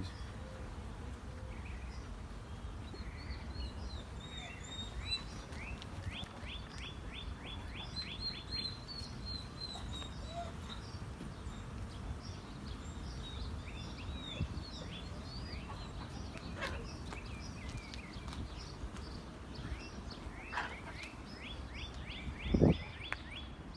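Songbirds chirping, with a fast trill of repeated down-slurred notes twice, over a steady low background rumble. Near the end there is a brief, louder rising whoosh.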